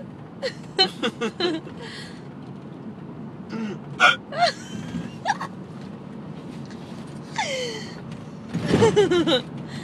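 A person hiccuping over and over: short, sharp, gasping hiccups, a quick run of them in the first second and a half and more around the middle, with a longer burst of voice near the end.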